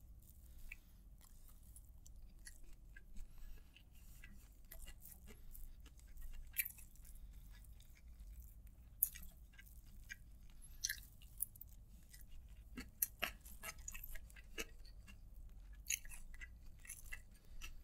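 Close-up eating sounds: wet chewing and mouth smacks as rice is eaten by hand, heard as many faint, irregular clicks.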